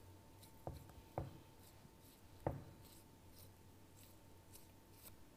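Faint, short strokes of a knife slicing through raw pork belly, with three soft knocks in the first few seconds.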